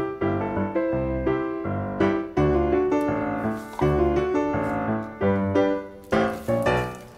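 Background piano music in a light, jaunty silent-film style, note after note in a bouncy rhythm.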